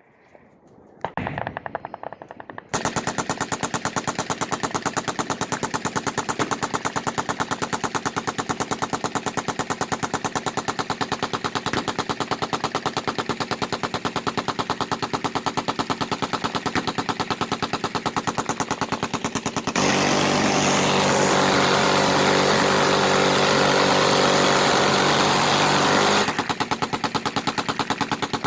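Machine guns firing continuously in rapid automatic fire, after a few short bursts in the first seconds. For about six seconds near the end a louder, even faster stream of fire takes over, blending into a buzzing tone.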